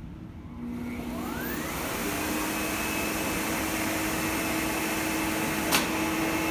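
Upright vacuum cleaner switched on: its motor spins up with a rising whine over about a second and a half, then runs steadily. A single sharp click sounds near the end.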